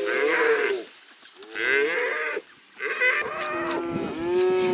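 Cattle mooing: a string of calls with a long, steady moo at the end.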